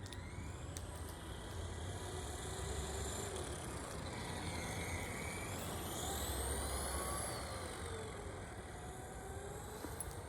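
Electric RC car motor whining as it is driven, its pitch rising and falling with the speed, strongest and highest a little past the middle, over a steady low rumble.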